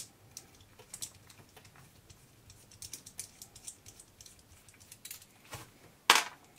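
Light, scattered clicks and ticks of small plastic and metal RC-car parts being handled while a screw is worked out with a small screwdriver. There is one louder knock about six seconds in.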